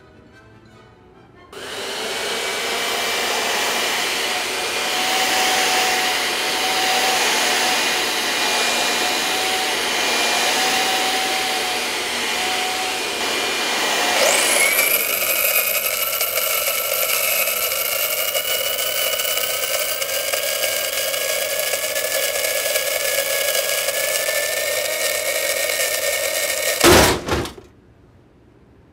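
A loud electric appliance motor running with a steady whine, switched up to a higher speed about halfway through with a rising whine, then shut off suddenly near the end.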